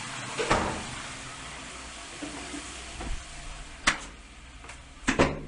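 Steady hiss with a few sharp knocks and clicks: one about half a second in, one near four seconds, and two close together near the end.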